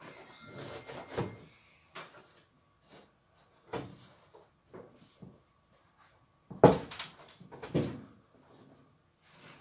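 Hands rustling and tucking the oven's insulation wool around the bottom heating element, with a few short knocks and bumps of handling; the two loudest knocks come about two-thirds of the way in.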